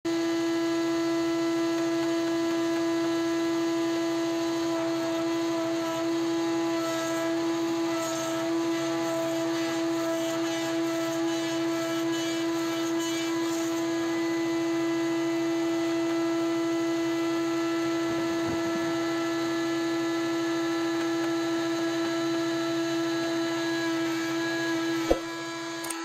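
Wood-Mizer WM4500 bandsaw sawmill running with a steady mechanical hum and whine. About a second before the end there is a sharp knock and the sound drops away.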